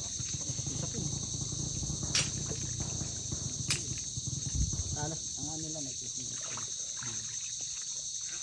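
A steady, high-pitched chorus of insects droning in the mangrove, with a couple of sharp clicks about two and four seconds in.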